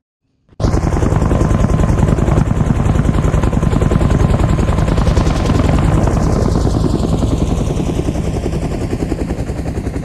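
Huey (Bell UH-1) helicopter rotor sound from a sound-design plugin preset, starting suddenly about half a second in with a fast, steady blade chop. From about the middle it slowly fades, its higher tones sweeping downward as the helicopter flies away.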